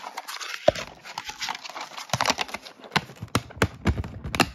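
Handling noise on the recording device: rustling and an irregular series of knocks and bumps as it is moved around and handled, the knocks coming thicker in the second half.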